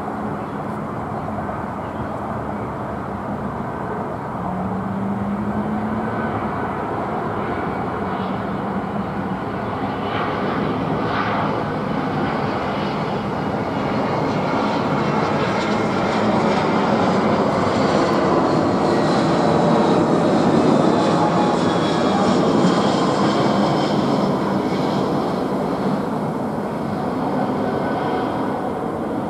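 Airbus A320 airliner's IAE V2500 turbofan engines passing low overhead on landing approach, gear down. The jet noise builds to a peak about two-thirds of the way through, with a high whine that falls in pitch as the plane goes by, then eases a little as it recedes.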